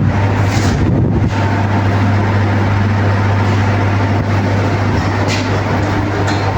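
Air-conditioning unit running: a steady low electrical hum under an even rushing noise, loud and unchanging.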